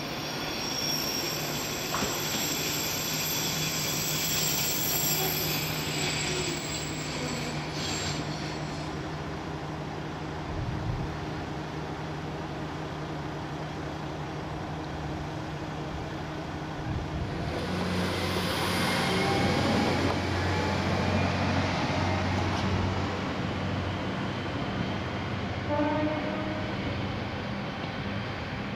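Noto Railway NT800 panorama diesel railcar's engine running at the station, a steady low drone. About 18 seconds in the engine note changes and grows louder.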